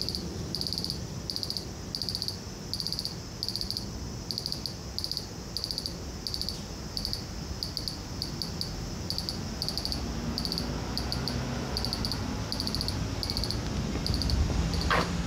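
A cicada singing in a steady pulsing rhythm, about two to three pulses a second, each pulse a rapid buzzing trill. A low traffic rumble swells in the last few seconds, with a short falling squeal right at the end.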